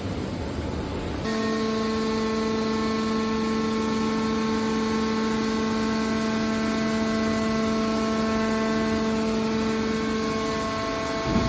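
Steady, even hum of a hydraulic car baler's pump unit, a held whine with no change in pitch. It begins abruptly about a second in, replacing a rougher rumble.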